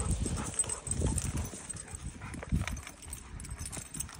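Two Dogo Argentino dogs at play, with irregular soft thuds of feet on dry, grassy ground.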